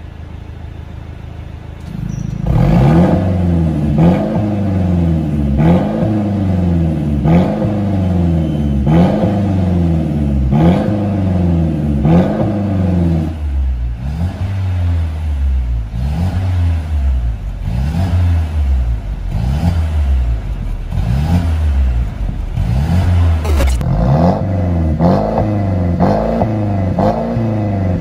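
Mercedes-Benz C300 (W205) turbocharged four-cylinder engine running through an aftermarket RES valved exhaust: it idles for about two seconds, then is revved over and over in quick throttle blips about once a second, with a warm exhaust note. Past the middle the blips change rhythm, and near the end they come a little faster.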